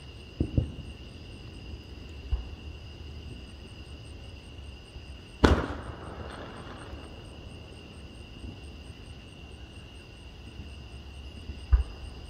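Aerial fireworks bursting as separate bangs: a quick pair about half a second in, a smaller one around two and a half seconds, the loudest about five and a half seconds in trailing off over a second or so, and another just before the end.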